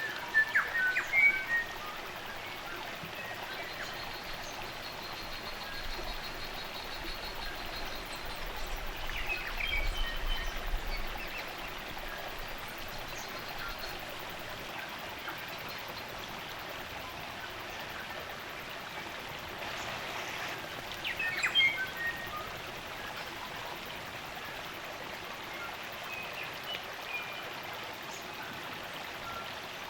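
Steady rush of a stream's running water, with short bursts of native forest birdsong chirping over it near the start, around ten seconds in, and again past twenty seconds.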